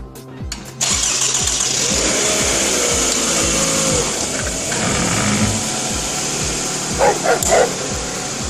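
Rubber chicken squawking as it is squeezed, with a wavering squeal about two seconds in and three short squawks near the end, over a steady rushing noise that starts about a second in.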